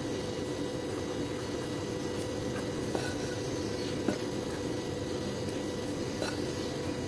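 Steady background hum, with a few faint light taps of a silicone spatula against a glass bowl as flour and baking powder are stirred, about three, four and six seconds in.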